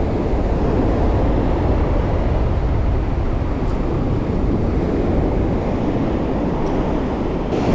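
Steady wind rumble buffeting the microphone over the continuous wash of surf on the beach.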